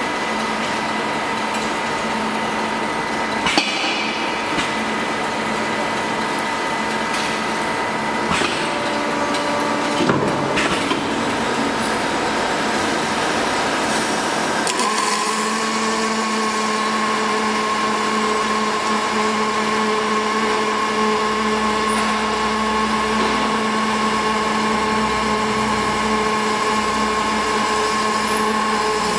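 Automatic socket welding machine on an LPG cylinder production line, with surrounding machinery running steadily and a few clanks in the first half. About halfway in, a steadier hum and hiss sets in as the torch starts welding the valve socket onto the top of the cylinder.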